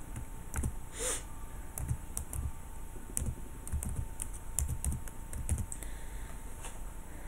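Computer keyboard typing: a run of irregular key clicks, each with a soft low thump, as a short word is typed.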